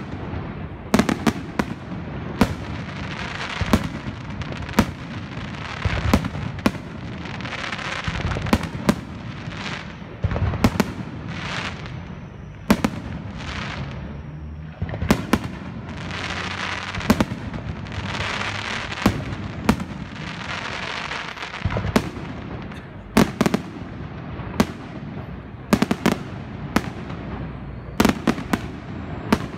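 Fireworks display: a rapid series of sharp bangs from bursting shells, many in quick clusters of two or three, over a steady hiss that swells at times.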